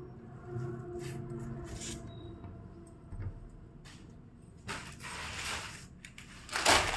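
Rustling of cloth being handled and moved across a table, in short bursts with a soft knock about three seconds in, growing louder near the end. A faint steady hum sits underneath at the start.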